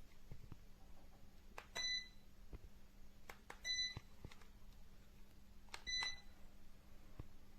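Three short electronic beeps from a ceiling fan's receiver unit, about two seconds apart, each just after a faint click, typical of the fan acknowledging remote-control commands. A low steady hum runs underneath.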